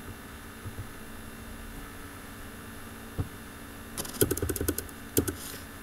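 Computer keyboard keys clicking in a quick run of keystrokes as a new number is typed, over a steady electrical hum. A single click comes about a second before the run.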